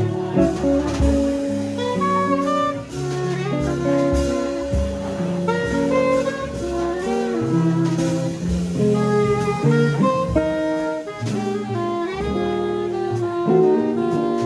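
Small jazz group playing live: a soprano saxophone plays a melody line over upright bass, hollow-body electric guitar and drum kit with light cymbal strokes.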